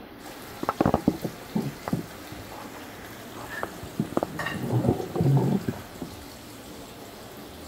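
Kitchen clatter: a few sharp knocks in the first two seconds, then a denser stretch of knocking and handling noise around five seconds in.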